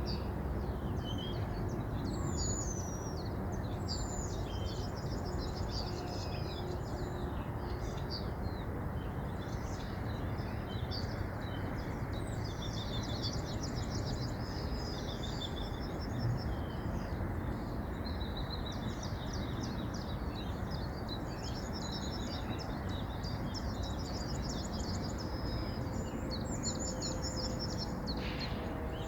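River water flowing with a steady rushing, while songbirds keep up fast, high trills and chirps over it.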